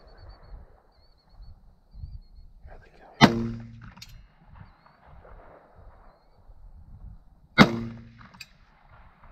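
Two rifle shots about four seconds apart, each with a short ringing tail and a fainter click under a second after it: shots at hogs at close range, which miss.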